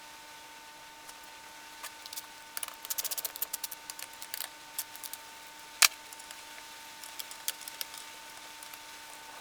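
Small metal parts and hand tools being handled while taking an old table saw apart: a run of quick clicks and light clatter, then one sharp clink near the middle, with a few scattered ticks after. A faint steady whine sounds throughout.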